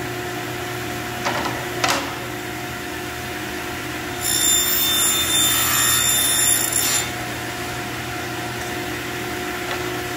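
Sliding table saw running steadily, its blade cutting through a piece of plywood for about three seconds starting about four seconds in, which adds a high whine over the motor hum. Two light knocks come in the first two seconds.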